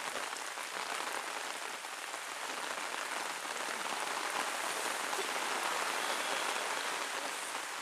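Steady rain falling, an even hiss that swells slightly around the middle.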